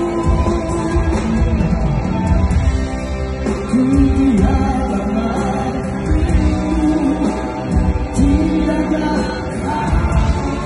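Live rock band playing with a male lead singer holding long, sliding sung notes in Malay over drums and bass guitar.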